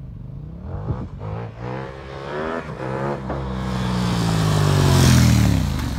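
Quad powered by a KTM 1290 Super Duke V-twin accelerating hard up through the gears. The engine note rises and breaks off at each quick upshift, several times in a row. It then grows louder as the quad nears, and its pitch falls away near the end.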